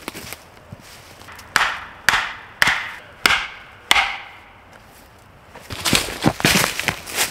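Wood being struck hard five times, about twice a second, each blow with a short ring, then a quick jumble of knocks and crackles near the end.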